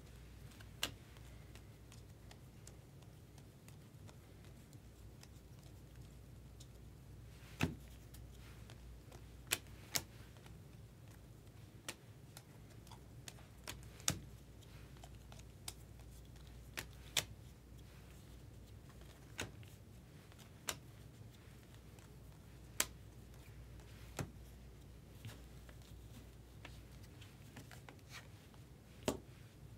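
Bowman Chrome baseball cards being thumbed off a stack one at a time and set down on piles on a table: sharp, isolated clicks and snaps every second or two, over a faint low hum.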